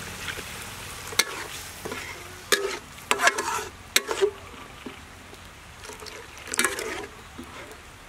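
Spatula stirring a thick paste in a metal wok, with sharp scrapes and knocks against the pan about a second in, several more between two and a half and four seconds, and a last cluster near seven seconds, over a steady low sizzle of the cooking food.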